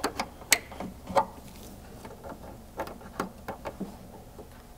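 Scattered light plastic clicks and taps as the Ford Bronco tailgate's wiring connectors are handled and plugged back in. The sharpest click comes about half a second in.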